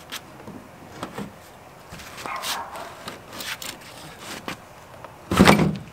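Pry bar clicking and scraping against the 7.3 Powerstroke oil cooler as its end piece is pried at the tabs, a few light metal clicks, then one short loud sound near the end.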